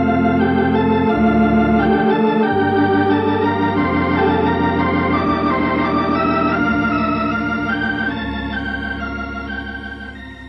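Organ music bridge marking a scene change in a radio drama: sustained chords that start abruptly, shift every second or two, and fade out near the end.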